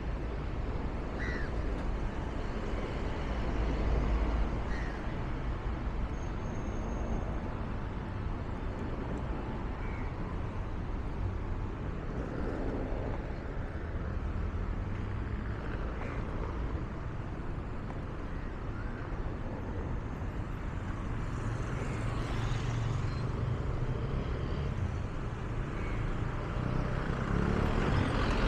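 City road traffic: a steady low rumble of passing cars, with a car driving past close by near the end.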